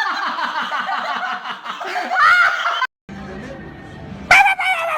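A person laughing in rapid, choppy bursts, then a short high-pitched shriek near the end.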